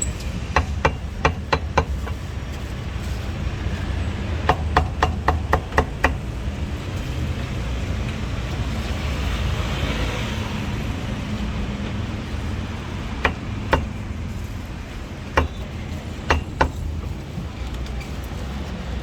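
Cleaver chopping on a wooden chopping board, a quick run of sharp knocks at the start, another a few seconds later, and a few scattered chops near the end. A steady low street and traffic rumble runs underneath.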